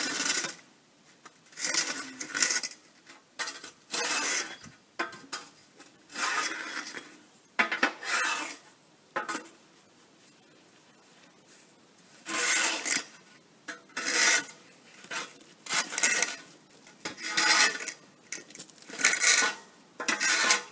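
Screed beam dragged in short back-and-forth strokes across the screed bars, scraping and leveling bedding sand that is chunky from the cold: about a dozen gritty scrapes, a second or two apart, with pauses between.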